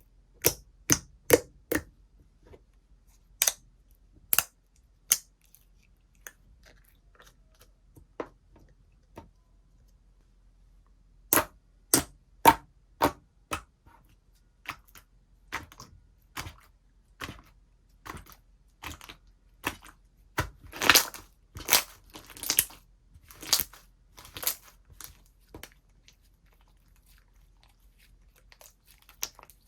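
Slime being played with by hand: a run of sharp pops and clicks, a few quiet seconds, more pops, then longer crackling squishes near the end.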